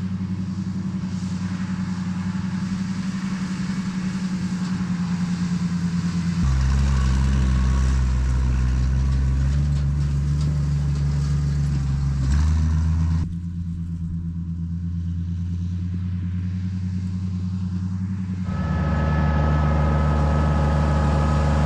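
Farm tractor engine running steadily under way, its note jumping to a different pitch and loudness several times.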